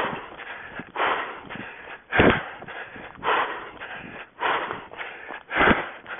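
A runner's hard breathing close to the microphone: one loud breath about every second, in a steady rhythm, with fainter rustle between the breaths.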